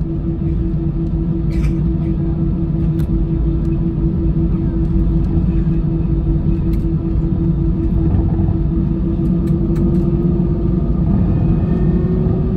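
Cabin noise of an Airbus A320-214 taxiing, heard from a window seat over the wing: a steady low rumble of the CFM56 engines at taxi power and the rolling gear, with an engine hum that rises slightly in pitch near the end. A few faint clicks come through it.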